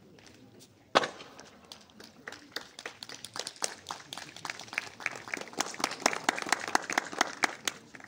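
A sharp knock about a second in, then a small group of spectators clapping, the claps growing denser and louder before stopping near the end.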